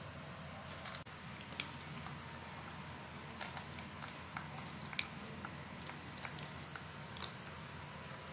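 A cat crunching large pieces of dry kibble: irregular crisp crunches and clicks, with the odd louder crack, over a steady low hum.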